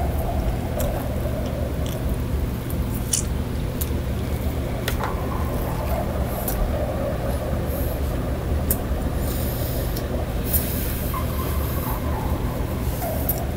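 A steady low hum runs throughout, with scattered small clicks and knocks. From about nine seconds in there are short bursts of rustling, a paper napkin pressed and rubbed against the face.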